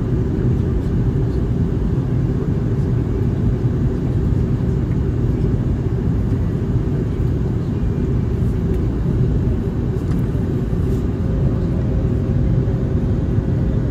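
In-flight cabin noise of an Airbus A321neo, heard from a window seat over the wing: a steady low rumble of its Pratt & Whitney geared turbofan engines and the airflow. A faint steady hum joins near the end.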